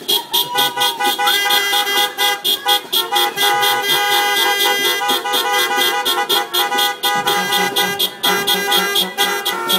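Several car horns sounding together in quick rhythmic toots, about five a second, playing a tune as a car-horn ensemble. A lower-pitched horn joins about seven seconds in.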